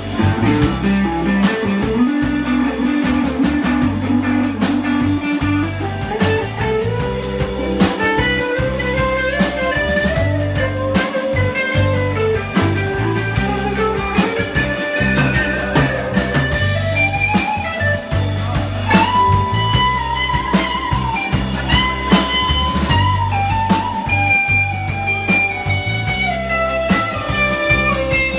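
Live blues-rock band playing an instrumental passage: electric guitar lead lines with held and bending notes over bass guitar and a drum kit.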